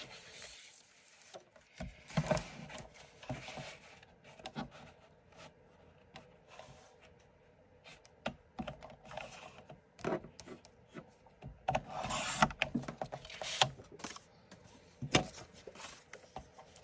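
Cardstock being handled and trimmed on a Westcott Carbo Titanium sliding-blade paper trimmer: scattered light clicks and taps of paper and plastic, with a few short swishes, the longest about twelve seconds in.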